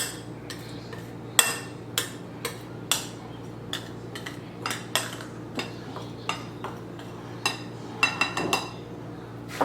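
A utensil stirring dry flour and spice coating in a mixing bowl, tapping and clinking against the bowl in irregular strikes about one or two a second, with a quick run of taps near the end.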